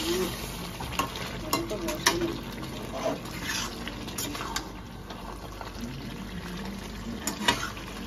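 A metal spatula scrapes and clinks irregularly against an aluminium kadai as pieces of mutton are stirred and fried in spiced oil, with a steady sizzle underneath. This is the kosha stage of a Bengali mutton curry, the meat being dry-fried down with onions and spices.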